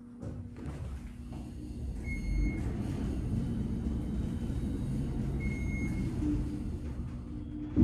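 Traction elevator car travelling down: a steady low rumble of the ride, two short electronic beeps about three seconds apart, and a sharp thump near the end.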